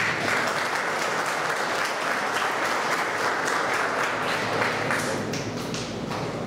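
Audience applauding: dense clapping that thins out to a few scattered claps about five seconds in.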